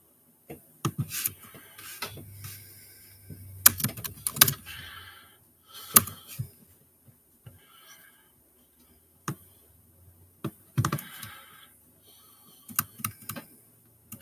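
Typing on a laptop keyboard: irregular clusters of sharp key clicks with pauses between them.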